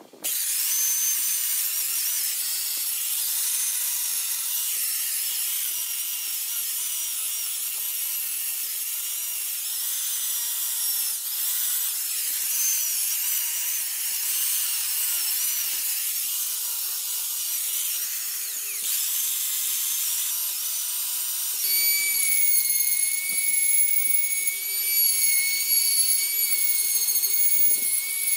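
Handheld electric die grinder running at high speed with a carving bit cutting into wood, starting suddenly. The high whine wavers as the bit bites, then from about 22 seconds in becomes a steadier, louder whine.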